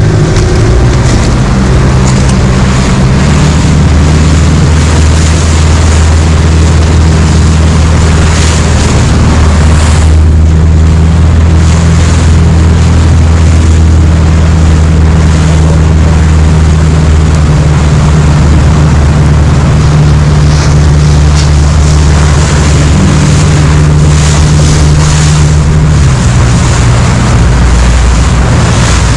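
Outboard motor of a Zodiac inflatable boat running at speed, a steady low drone, with wind rushing over the microphone. The engine note drops near the end as the boat slows.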